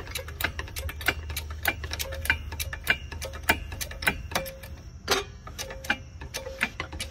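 Duralast 2½-ton hydraulic trolley jack being pumped to raise a car: a string of sharp, irregular clicks, a few each second.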